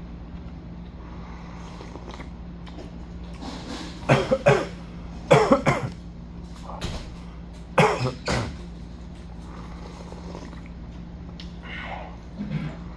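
A man coughing three times, each a short burst of two or three hacks, over a steady low hum. Near the end come a few soft gulps as he drinks the noodle broth from the bowl.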